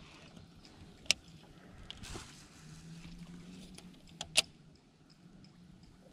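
A few sharp clicks from a baitcasting reel being handled and adjusted, one about a second in and a close pair about four seconds in, the last the loudest, over a faint low hum.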